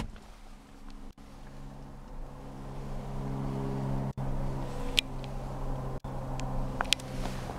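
A vehicle engine running steadily with a low hum that slowly gets louder, with a few light clicks and three brief drop-outs in the sound.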